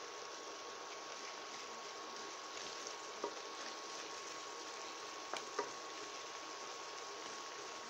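Curly endive sizzling gently in a stainless-steel frying pan as it is stirred with a wooden spoon, with three short knocks of the spoon against the pan, one about three seconds in and two close together about five and a half seconds in.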